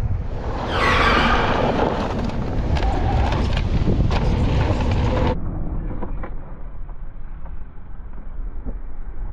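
Wind buffeting the microphone of a camera on an electric mountain bike riding fast down a dirt trail, with tyres rolling over the dirt and the bike clattering over bumps. The sound turns duller and a little quieter about five seconds in.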